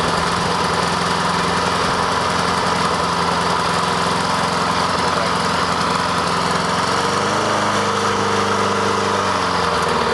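Honda HRR216 lawn mower's four-stroke engine running steadily on its first start after a winter in storage with stabilized fuel. About seven seconds in, its pitch shifts briefly, then settles back near the end.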